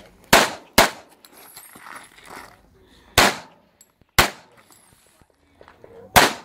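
Five handgun shots fired during an IPSC practical shooting stage. Two come close together just after the start, then two about a second apart around the middle, and one more near the end.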